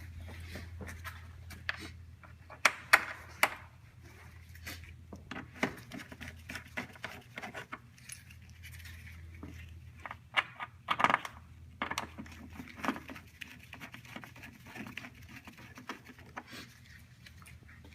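Irregular light metallic clicks and clinks of screws and a hand tool as bumper screws are fitted and snugged, with a few louder clicks about 3 s and 11 s in. A steady low hum runs underneath.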